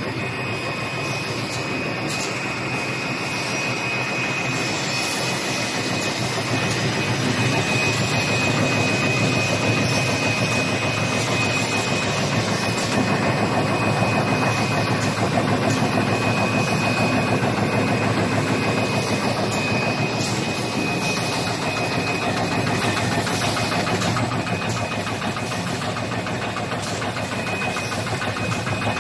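Automatic wet wipes folding and packaging machine running at production speed: dense, steady mechanical clatter with many small ticks and a thin, steady high whine.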